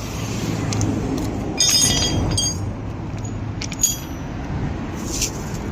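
Loose steel bolts and nuts from a road barrier clinking together as they are gathered, with a cluster of ringing metal clinks about a second and a half in and a few more near the end. Steady traffic noise runs underneath.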